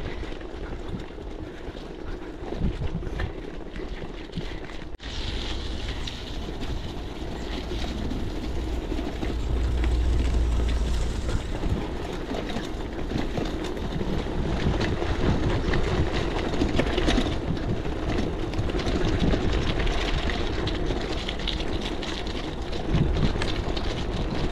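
Oggi Velloce gravel bike rolling over stone paving, a continuous rough rattle of tyres and frame with many small knocks and a low rumble. It drops out briefly about five seconds in and is loudest for a few seconds near the middle.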